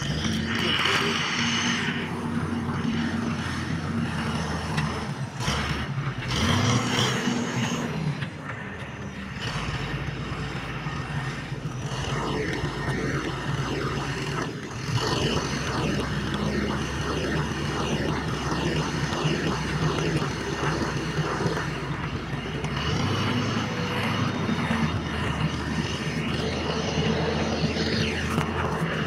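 Motorcycle engine running while riding over a bumpy dirt track, its note rising briefly about six seconds in, under steady wind and road noise.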